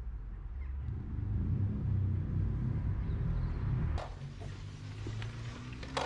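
Low, steady engine rumble from vehicles on the road, loudest in the middle, with a motorcycle engine running close by near the end. Two sharp clicks, about four seconds in and at the very end.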